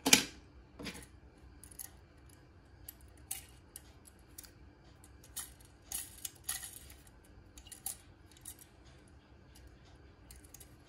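Small toy cars clicking and clinking together as they are picked up and handled: scattered light clicks, the loudest right at the start and another about a second in.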